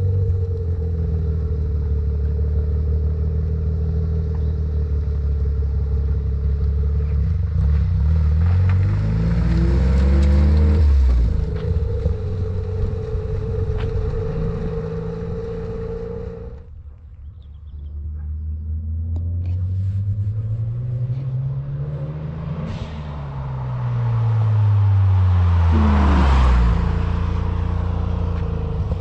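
Mazda RX-7 FD's twin-turbo 13B rotary engine pulling hard under acceleration. The engine note climbs steadily, drops sharply at an upshift, climbs again after a brief break, and drops at another upshift near the end.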